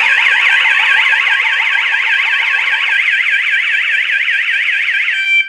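Home alarm panel's siren sounding a loud, rapid up-and-down warble, set off by the door sensor being separated while the system is armed. Near the end the warble stops and gives way to a steady tone.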